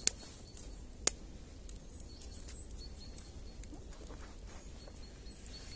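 Wood fire in an outdoor fire pit crackling, with two sharp pops about a second apart at the start, then faint scattered crackles and a few short high chirps.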